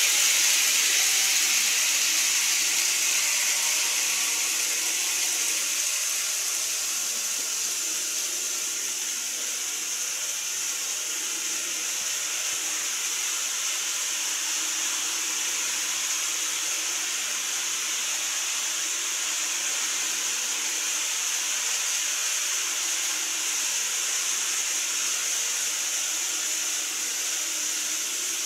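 N-gauge model train running on plastic elevated track: a steady high hiss of wheels and motor that fades over the first several seconds as the train moves away, after which a steady hiss remains.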